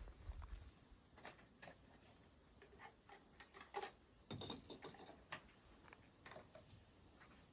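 Near silence with faint, scattered small clicks and taps of camping gear being handled, and a brief scuff about four and a half seconds in.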